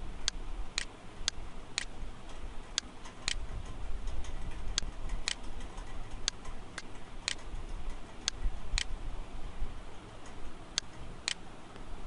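Sharp ticks on a regular beat of about two a second, with some beats skipped, over a low steady hum.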